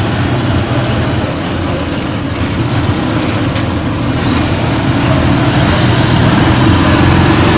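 A vehicle's engine running steadily, heard from inside the passenger compartment as an even low drone.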